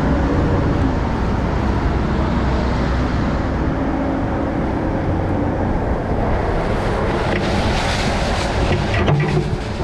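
Heavy equipment diesel engine running steadily, with a brief hiss about seven seconds in.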